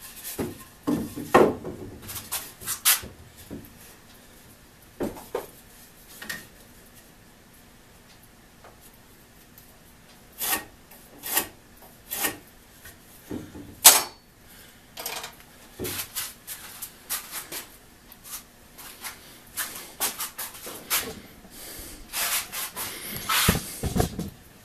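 Pieces of 2x4 lumber and a small plastic square being handled on a wooden workbench: scattered knocks and scrapes of wood on wood. A quiet spell comes a few seconds in, and a denser run of scraping near the end.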